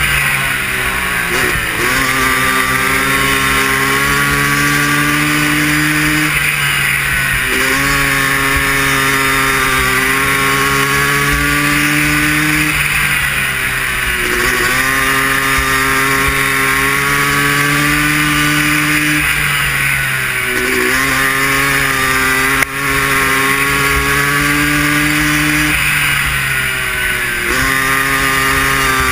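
Air-cooled racing ATV engine at high revs, lapping a dirt flat track: its pitch holds steady, then drops and climbs again about every six seconds as the rider backs off for each turn and accelerates out. A single sharp knock comes about two-thirds of the way through.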